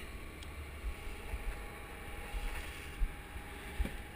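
Motorboat under way, its engine running steadily under the rush of water along the hull, with a low rumble throughout and two brief knocks about three seconds in.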